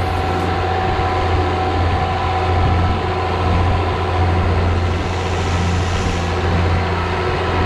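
John Deere tractor's diesel engine running steadily under load as it pulls a manure spreader, with a deep, even hum.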